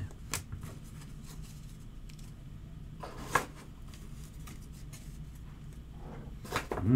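Trading cards and plastic card sleeves handled quietly, with a few faint clicks and one sharp tap about three and a half seconds in, over a steady low hum.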